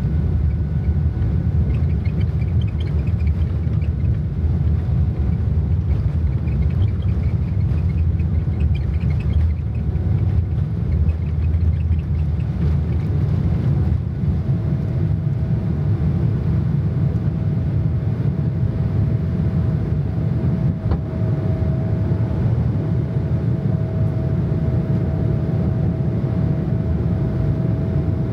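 Steady low rumble of a vehicle under way. About halfway through, a thin steady whine joins it.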